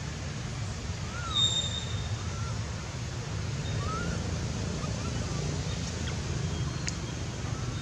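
Outdoor ambience: a steady low rumble, with a few short chirps that rise and fall in pitch and one brief high whistle about a second and a half in.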